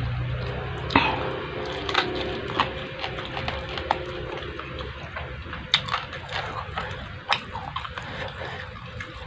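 A person chewing food close to the microphone, with irregular wet smacks and clicks of the lips and mouth.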